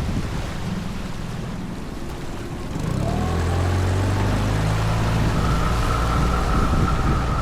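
Tohatsu 15 hp outboard motor running on an inflatable boat. It runs lower for the first few seconds, then about three seconds in the revs climb and it settles into a louder, steady run with a high whine.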